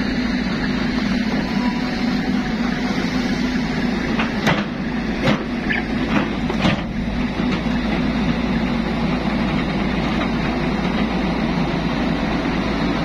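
Excavator's diesel engine running steadily close by, with a few short knocks in the middle.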